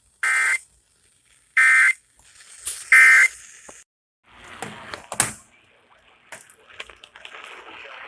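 Emergency Alert System end-of-message signal: three short bursts of warbling digital data tones about a second apart, which mark the end of the flash flood warning. They are followed by a few seconds of noisy crackle and clicks.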